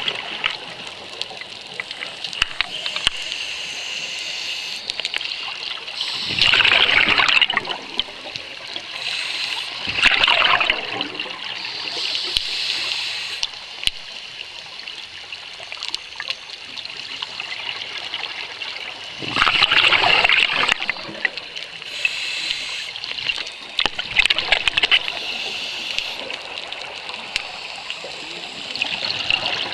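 Underwater scuba-dive sound: a diver's exhaled bubbles from the regulator gurgling past the camera housing in several loud bursts, each a second or so long and a few seconds apart, over a steady hiss.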